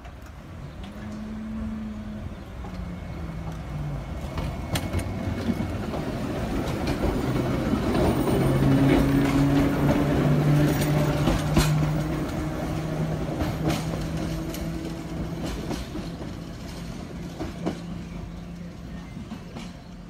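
Class 483 electric train, ex-London Underground 1938 tube stock, pulling out and passing close by. It gives a low hum with a few held whining tones and scattered wheel clicks over the rail joints, swelling as the cars go by about halfway through and fading as it draws away.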